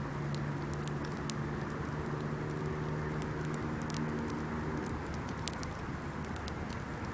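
Wood bonfire burning, crackling with many small scattered pops and snaps over a steady low hum.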